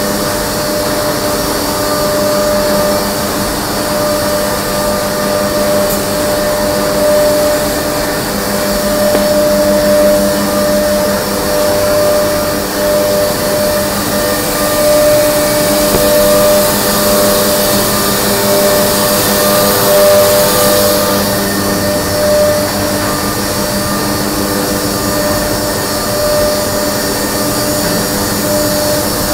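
Müller Martini Tigra perfect binder running: a steady mechanical drone of several constant hum tones under a hiss, with the hiss swelling briefly about twenty seconds in.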